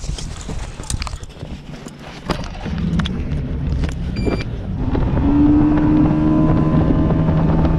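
Fishing boat's engine running, getting louder and higher in pitch about five seconds in as the throttle opens and the boat gets under way. Before that there is some clatter and a short electronic beep.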